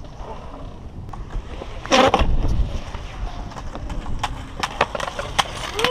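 Skateboard wheels rolling on a concrete bowl, with a loud scraping slide about two seconds in. A run of sharp clacks and knocks follows in the last two seconds as the board hits the concrete.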